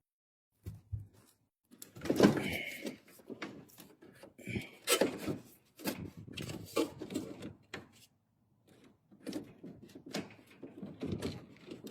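Handling noise from electrical wiring and fittings being worked at: irregular knocks, scrapes and rustles starting a moment in, with a brief lull about two-thirds of the way through.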